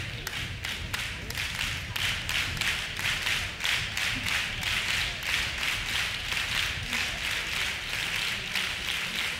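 Many people clapping in unison in a steady rhythm, about three claps a second.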